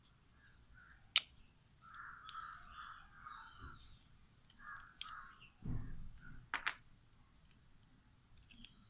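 Sharp plastic-and-metal clicks and a dull knock as the tape mechanism of a cassette deck is handled and worked on. A few harsh calls sound in the background between the clicks.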